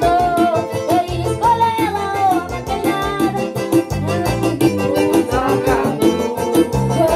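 Live forró band music: a boy sings the melody into a microphone over keyboard, electric guitar, bass and a steady beat.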